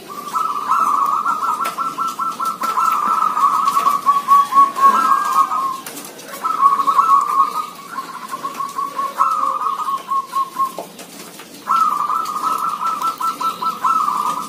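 Caged zebra doves singing: rapid, trilled cooing phrases, one after another, answering each other, with short pauses about six and eleven seconds in.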